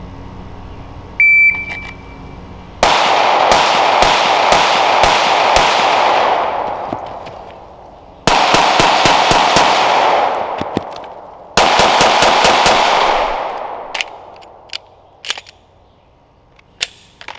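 A shot timer beeps once, then a ported ZEV OZ9C 9mm pistol fires three quick strings of six shots, about four seconds apart. Each string trails off in a long echo. This is a timed run of three bill drills; the timer reads 11.49 seconds from the beep to the last shot.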